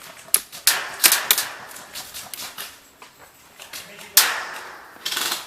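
Airsoft guns firing: sharp single cracks, several in the first second and a half and a loud one about four seconds in.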